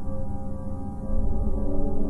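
Ambient drone music: many held, overlapping tones over a dense low rumble, swelling a little about a second in.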